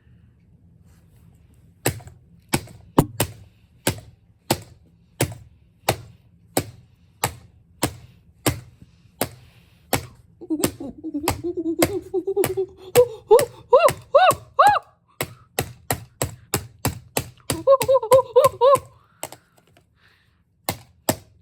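Repeated knocks on a hair dryer's plastic housing, about one or two a second and quicker in the second half, as it is tapped along the seam to break its plastic snaps loose. A man's wordless grunting vocal sounds come through the middle and again near the end.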